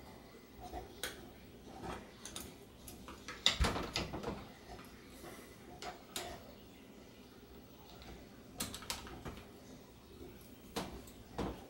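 Scattered metal clicks and knocks of tool handling: an extra-long hex bit on an extension being fitted down into a RockShox Indy C fork leg and worked against a tight bottom bolt. The loudest cluster of knocks comes about three and a half seconds in.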